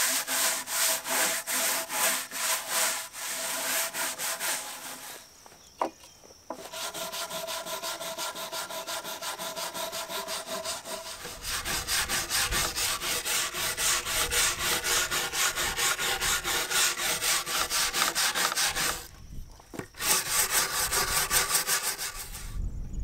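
A stiff hand brush scrubbed back and forth along a rough-sawn board in quick, even strokes, cleaning dirt and mould off the wood. The scrubbing stops briefly twice.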